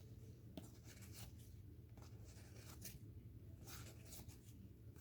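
Faint, quick swishes of trading cards being slid one behind another in the hand, each a short brush of card stock on card stock, coming irregularly every half second or so over a low steady room hum.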